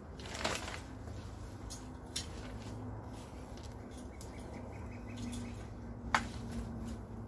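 Metal garden rake scraping through loose soil as a bed is levelled, with a few sharp clicks from the tines, the loudest a little after six seconds. A steady low hum runs underneath.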